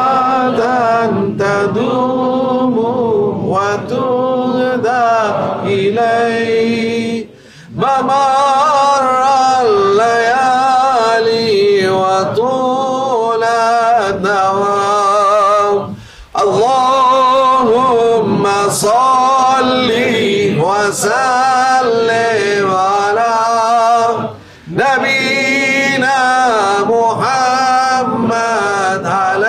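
A man's unaccompanied voice chanting the salawat, the Arabic blessing on the Prophet, in long, ornamented phrases, pausing for breath about every eight seconds.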